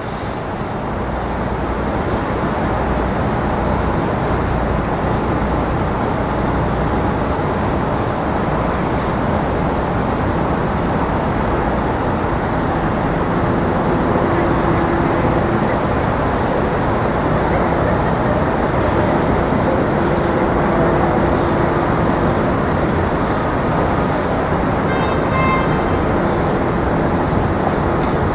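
Steady city street traffic: the even rush of cars and trucks passing, with a short high-pitched tone near the end.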